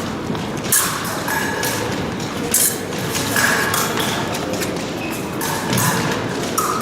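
Sounds of an épée bout: irregular thuds of fencers' footwork on the piste, mixed with scattered clicks and short metallic rings of blades touching.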